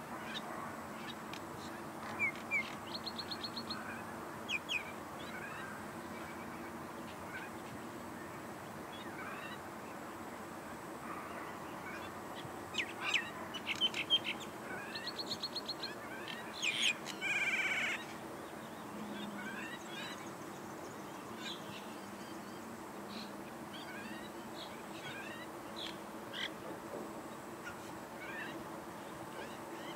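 Common mynas calling: harsh, chattering calls with rapid rattles, coming in two loud bunches a few seconds in and again around the middle, with scattered short chirps between.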